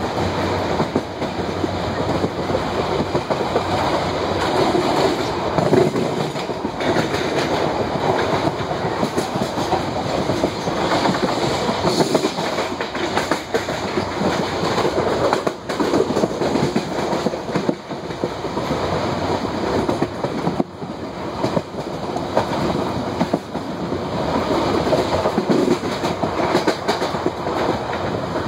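Indian Railways passenger coach of the Darshan Express running along the track: a steady rumble with the rattle and clatter of wheels over the rails, heard from on board.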